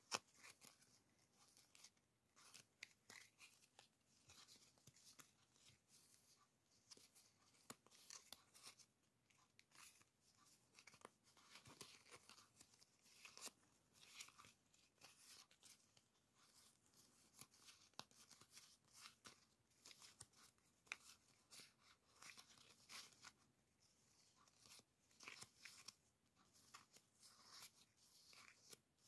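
Faint rustling of a handful of die-cut paper stickers being shuffled and leafed through by hand, with many small quick ticks as the sticker edges flick against each other.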